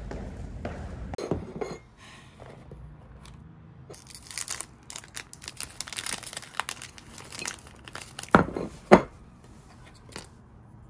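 Crinkling and tearing of a foil-backed cookie wrapper as a chocolate cookie is taken out over a plate, followed by two loud sharp knocks about half a second apart. In the first couple of seconds, footsteps and jacket rustle from running.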